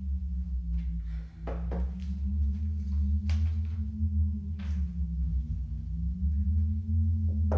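Low ambient drone of a horror score, its pitch slowly rising and falling, with paper sheets rustling a few times as they are handled.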